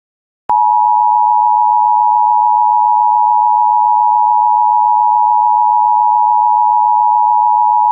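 Emergency Alert System attention signal, a steady two-tone electronic tone (853 and 960 Hz sounded together). It comes on sharply about half a second in and holds unbroken, announcing an emergency alert message.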